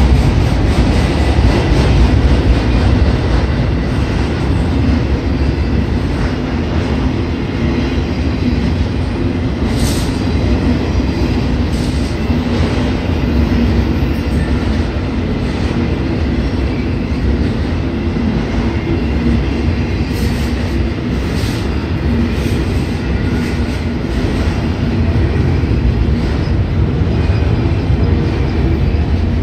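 Freight train of autorack cars rolling steadily past: a continuous rumble of steel wheels on rail, with a few sharp clicks about ten seconds in and again around twenty seconds in.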